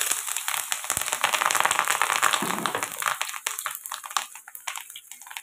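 Hot oil in a wok sizzling and crackling around a batter-coated young banana leaf being deep-fried into a chip. The sizzle is loudest over the first three seconds and dies down toward the end as the batter sets.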